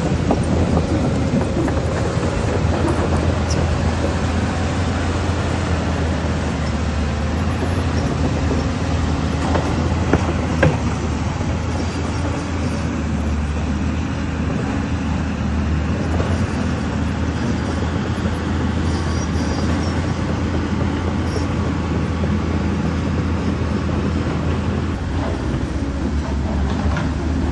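Caterpillar 320D hydraulic excavator's diesel engine running steadily with a deep hum, and two sharp knocks about ten seconds in.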